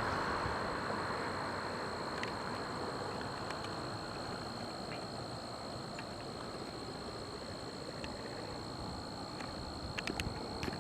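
Insects keeping up a steady high-pitched drone over a broad rumble that slowly fades, with a few faint clicks near the end.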